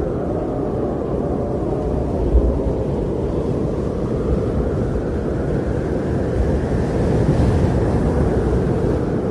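Strong blizzard wind blowing as a steady, deep rush of noise, swelling in a gust about seven seconds in.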